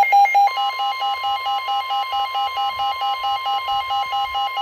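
Emergency alert receiver sounding its alarm for a severe thunderstorm warning: a loud beep pulsing about four to five times a second, joined about half a second in by a steady alarm tone that holds underneath.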